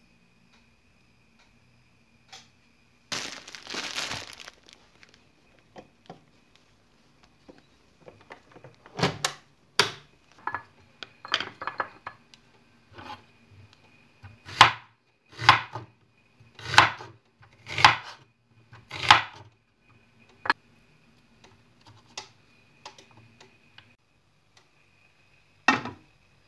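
Knife chopping an onion on a wooden cutting board: about a dozen sharp strokes, slow and uneven, roughly one a second, over a faint steady hum. Before them comes a short rustling scrape, and near the end a single knock.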